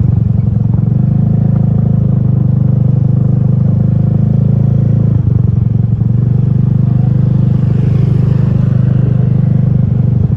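A large bus's engine running loudly close by: a steady low rumble with a rapid pulsing beat, briefly dipping about halfway through.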